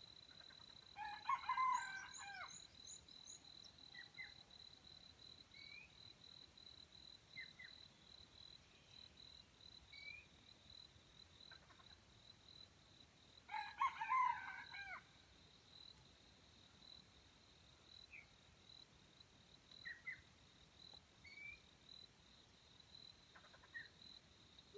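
Red junglefowl rooster crowing twice, about a second in and again some twelve seconds later, each crow about a second and a half long. A steady high insect buzz and a few faint bird chirps run underneath.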